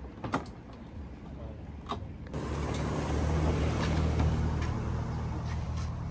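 Car engine hum with a couple of sharp clicks. About two seconds in, the engine and road noise suddenly grow louder and stay up.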